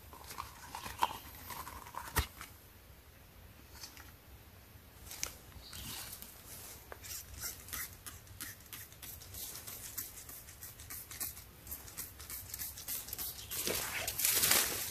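Hand trigger spray bottle spritzing liquid onto tree bark in a run of short squirts, followed near the end by louder rustling of dry leaf litter underfoot.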